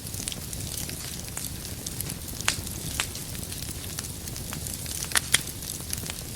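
Wood fire crackling in a fireplace: a steady low rush of burning with scattered sharp pops, the loudest about two and a half and three seconds in, and a quick pair about five seconds in.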